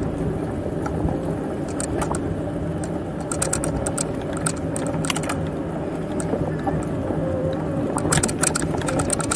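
Bicycle in motion: steady rolling noise from the tyres and drivetrain, with bursts of light rattling and clicking, thickest a few seconds in and again near the end.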